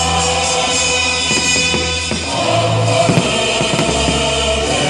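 Music with choir-like singing over held bass notes that shift about two and a half seconds in and again near the end, with a few short sharp hits in the middle.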